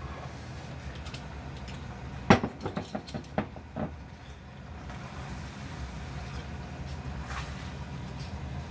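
A silicone spatula knocks and scrapes against a nonstick wok while a stir-fry of sundae and rice cakes is stirred. A quick run of about half a dozen knocks comes about two seconds in, the first the loudest, over a steady low rumble.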